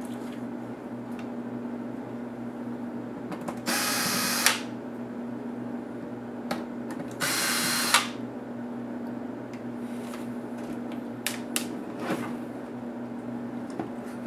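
Cordless electric screwdriver running in two short bursts, about four and seven seconds in, backing screws out of a laptop's plastic case; each burst ends in a sharp click. A few light clicks follow near the end.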